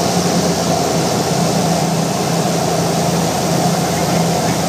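Cabin noise of a single-engine propeller light aircraft on final approach: a steady engine and propeller drone with a low hum, over a loud rush of air.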